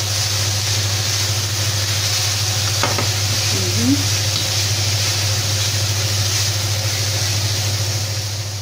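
Shredded cabbage and carrots sizzling in a frying pan as they are stirred with a wooden spatula, over a steady low hum, with a single light knock about three seconds in.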